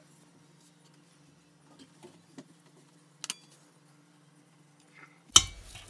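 Fingers folding a thin wonton wrapper, with faint small clicks and rustles over a steady low hum. Near the end comes a sudden loud clatter of dishes.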